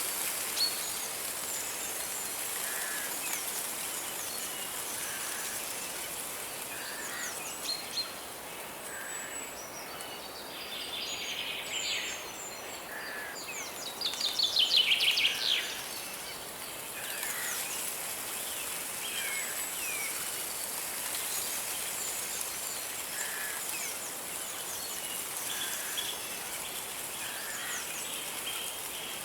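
Forest birds singing over a steady rush of flowing water. A short call repeats every second or two, and about halfway through a rapid run of about ten falling notes is the loudest sound.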